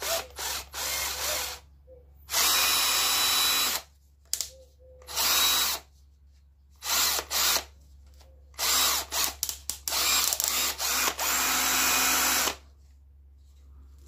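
Parkside PABS 20-Li F7 20-volt cordless drill-driver running free in the air in repeated trigger bursts. It starts with a few short spurts, then runs for one to three seconds at a time, with the longest run near the end.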